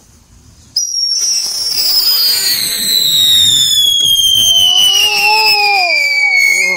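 A whistling firework going off with one loud, shrill whistle. It starts suddenly about a second in and slides slowly down in pitch. Near the end a toddler's cry rises and falls under it.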